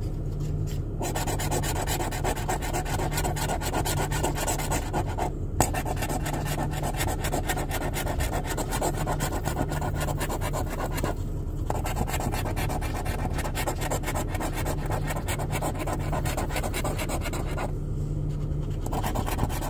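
A coin scratching the coating off a scratch-off lottery ticket, in quick continuous rubbing strokes. There are brief pauses about five and eleven seconds in, and a longer one near the end.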